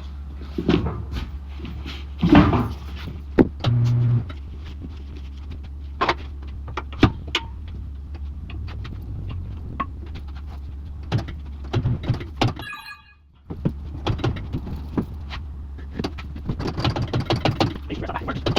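Scattered metal clanks and knocks of tire-changing work on a tire machine, over a steady low hum.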